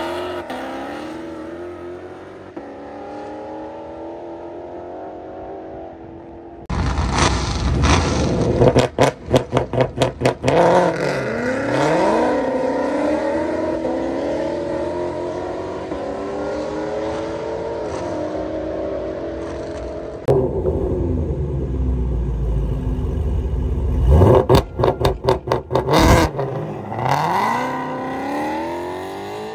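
Car engines revving hard and accelerating, their pitch climbing and then dropping again several times as they pull through the gears. Clusters of sharp, rapid bursts of noise come twice, and the sound jumps abruptly in level about seven seconds in and again about twenty seconds in.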